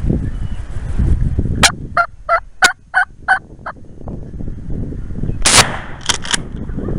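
Wild turkey sounds over steady wind rumble: a run of about seven yelps at about three a second, then a harsh gobble burst about five and a half seconds in, followed by two short notes.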